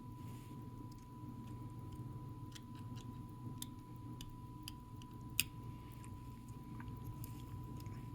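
Small, irregular clicks of tweezers or a small tool against the tiny metal parts of a mechanical wristwatch as it is taken apart, with one sharper click about five seconds in. A faint steady high tone and a low hum run underneath.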